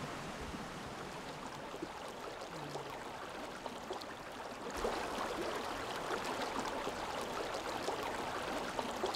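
Small rocky stream running, a steady rush of water over stones. About five seconds in it becomes louder and brighter, with water close by flowing past a mossy rock.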